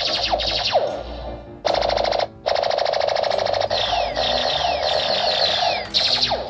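Electronic laser-blaster sound effects from a toy robot's speaker: quick falling zaps, repeated again and again, with a rapid buzzing pulse from about one and a half to three and a half seconds in.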